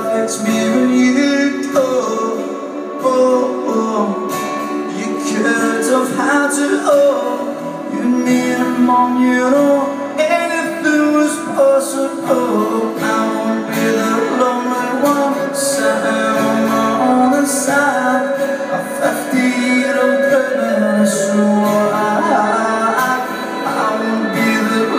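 Live stripped-down rock song: a man singing over a strummed acoustic guitar and a second guitar.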